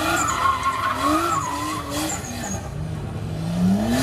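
Car drifting in circles with its tyres squealing in a wavering high note while the engine revs climb and drop again and again, ending in a long climb in revs near the end.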